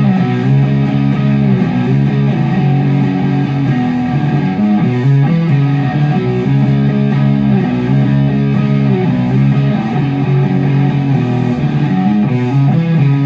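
Electric guitar, a Telecaster with active pickups, being played: sustained chords and notes that change every half second or so.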